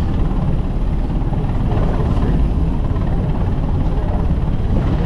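Rescue helicopter hovering off a ship, its rotor and engine running with a steady rotor beat.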